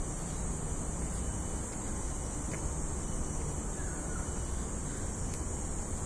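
Steady outdoor background noise, a low rumble under a constant high hiss, with a faint, short bird call about four seconds in.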